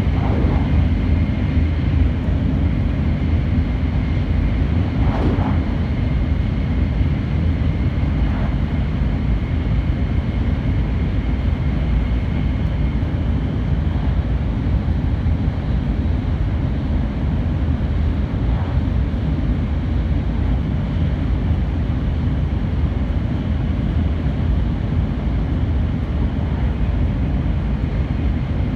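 Running noise heard inside a JR Kyushu N700-8000 series Shinkansen cruising at speed: a steady, heavy low rumble and rush of wheels and air. A faint high whine runs under it and fades out about twelve seconds in, and a few brief swishes come through in the first few seconds.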